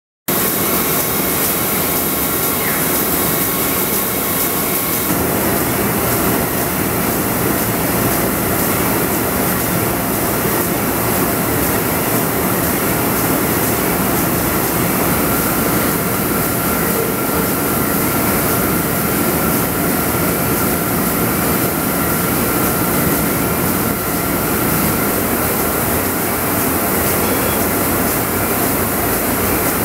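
Rotogravure printing press running: a loud, steady machine noise of rollers and drives, with faint steady whining tones over it. It cuts in suddenly at the start.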